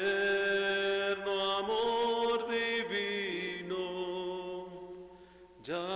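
Spanish worship song with long held sung notes over steady accompaniment. The sound fades from about four seconds in, and a new held chord enters sharply just before the end.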